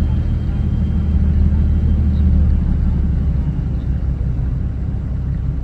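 Fishing boat's engine running steadily, a low drone that eases slightly about halfway through.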